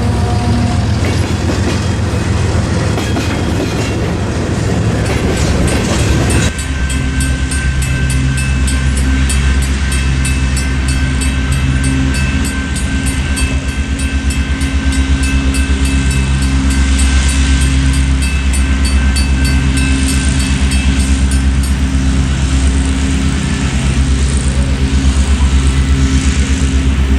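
Canadian Pacific train running by on the rails: a diesel locomotive's steady low engine drone with a fast, even pulsing. The sound changes character about six seconds in.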